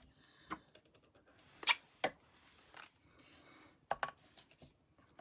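Scattered light clicks and taps as small die-cut cardstock pieces are picked up and set down on a craft mat, about seven separate ticks with quiet between them.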